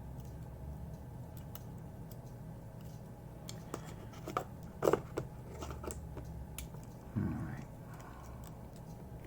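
Small clicks and taps from handling a phone's parts and small tools, a cluster of sharper clicks about halfway through, then a short soft low sound near the end. Steady low hum underneath.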